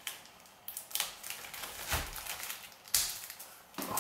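Clear plastic wrapping film crinkling in a handful of short rustles as fingers pick at and pull off the adhesive tape sealing it.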